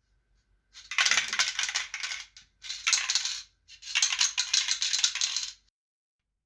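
Aerosol spray can being shaken by hand, its metal mixing ball rattling inside, in three bouts of rapid clattering with short pauses between them.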